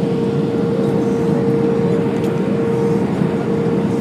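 Cabin noise inside an Airbus A320-211 on final approach, flaps extended: a steady rush of engine and airflow noise with a steady hum running through it.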